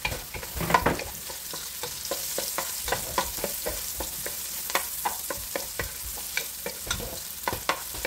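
Sliced onion, ginger and garlic sizzling in oil and butter in a pan, stirred with a wooden spoon that scrapes and knocks against the pan several times a second over the steady frying hiss, with one louder knock about a second in.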